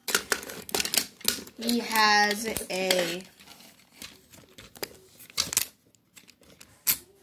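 Handling noise: scattered sharp clicks and rustling, as hands move a camera and plastic things about. A voice speaks briefly about two seconds in.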